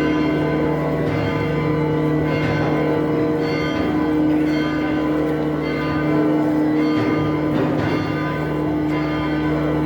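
Church bells of the Church of the Holy Sepulchre pealing without a break, several bells struck again and again so their tones ring on and overlap.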